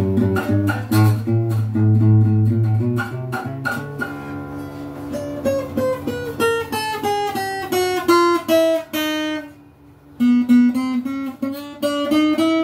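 Stock Donner acoustic guitar being played. A string is plucked repeatedly over a held low bass note, then comes a run of single notes falling in pitch, a short break about ten seconds in, and a run climbing back up. The notes ring clean, with no fret buzz.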